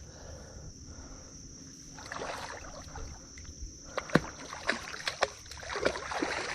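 Water splashing and sloshing in a shallow creek as a hooked soft-shell turtle is hauled in on a fishing line. Several sharp clicks come in the second half.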